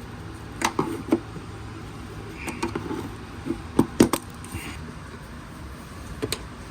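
A series of sharp plastic clicks and knocks, about ten in all, in two clusters and then a single one near the end, as push clips and the side skirt trim on a Subaru STI are pried loose.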